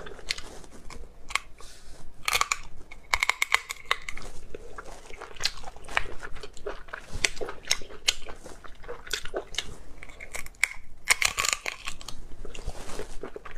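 Close-up mouth sounds of a person eating spicy snails: wet chewing and smacking with many sharp lip and tongue clicks, and a few short slurps.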